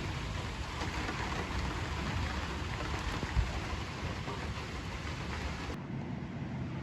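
Steady rain falling, a hissing wash, with a brief low thump about three and a half seconds in. The hiss drops off sharply near the end.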